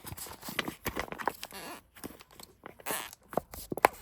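Footsteps and irregular knocks and rustling, as cardboard boxes of firework cakes are moved and handled.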